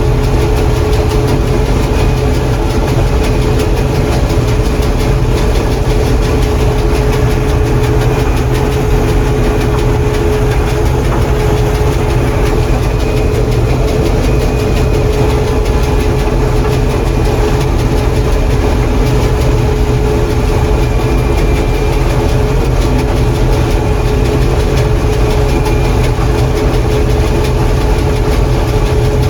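John Deere 4400 combine running steadily while harvesting corn: engine and threshing machinery at a constant pitch, with a steady hum and a faint high whine over it.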